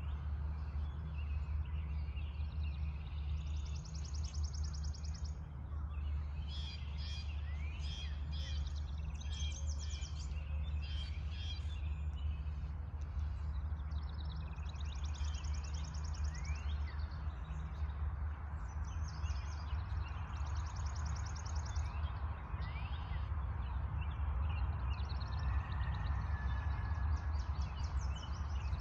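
Songbirds singing in a dawn chorus: repeated high trills of about a second and a half, scattered chirps and short rising whistled notes from several birds, over a steady low rumble.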